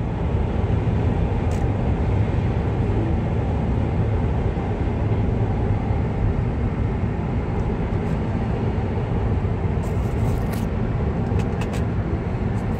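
Steady road and tyre noise inside a Tesla electric car's cabin at highway speed, mostly a low rumble. A few faint clicks come about ten seconds in.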